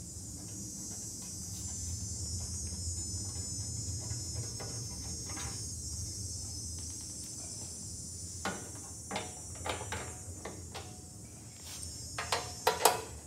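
Faint steady hiss, then from about eight seconds in scattered clicks and knocks, a louder cluster near the end, as a 3/8-inch drive ratchet with a 10 mm socket is fitted to and worked on the bolts of a snow thrower's plastic engine shroud.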